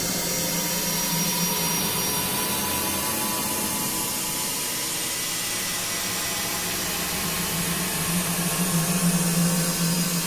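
A steady, dense drone of noise with a low hum under it, swelling louder about eight seconds in.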